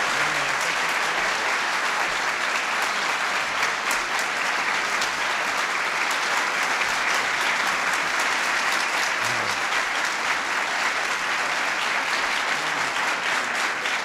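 Audience applauding, many hands clapping at a steady level.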